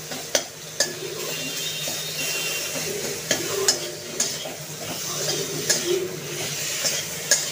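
A spatula stirring and scraping fried potatoes, tomatoes and green chillies around a metal karai over a steady sizzle of oil, with a sharp knock of the spatula on the pan now and then. The spices are being sautéed (kosha) in the frying oil.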